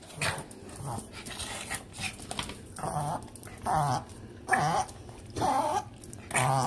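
A dog begging for a treat gives a string of short, wavering yelps, about one a second, starting about three seconds in.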